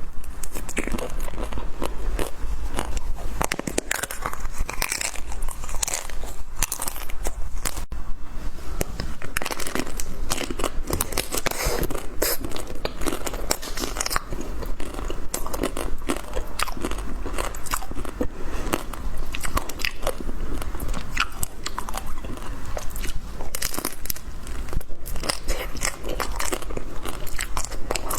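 Close-miked biting and chewing of a Magnum ice cream bar, its chocolate shell crunching and crackling in a steady run of bites.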